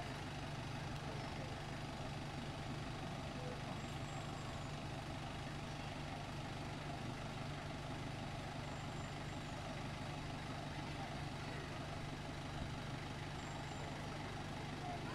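Truck engine idling with a steady low drone that holds unchanged throughout.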